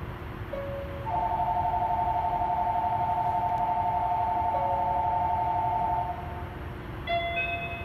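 Electronic door-warning signal at a monorail station stop: a short beep, then a warbling two-tone signal held about five seconds, then a few short chime notes near the end, over a steady low hum.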